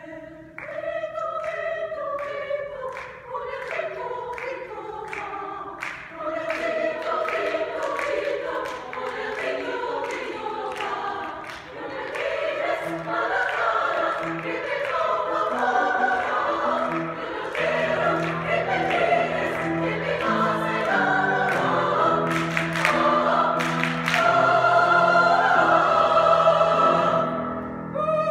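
A choir singing an upbeat song with piano accompaniment, the singers clapping in rhythm along with it. Near the end they hold a long chord that cuts off.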